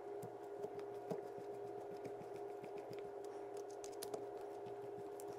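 Small parts of a Shimano Curado DC baitcasting reel clicking and ticking irregularly as they are handled and fitted back together, over a steady hum.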